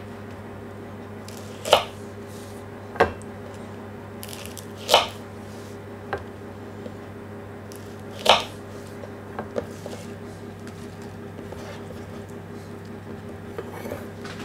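Kitchen knife halving Brussels sprouts on a wooden chopping board: a sharp knock as the blade cuts through each sprout onto the wood, four loud ones every two to three seconds with fainter taps between, over a steady low hum.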